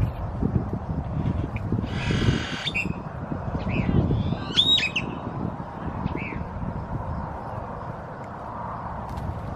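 Birds squeaking and chattering in the park trees: scattered short squeaks and rising whistled calls, with one harsh rasping call about two seconds in. An uneven low rumble runs underneath.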